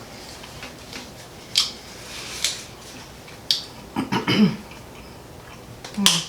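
Cutlery clinking against dinner plates in a few separate light taps, with a short hummed voice sound about four seconds in.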